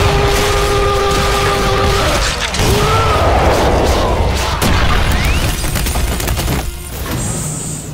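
Anime fight soundtrack: the 'Ora Ora' punch-barrage battle cry ends in one long held shout over dense, booming punch impacts, followed by a crash and heavy thuds as the struck foe is sent flying.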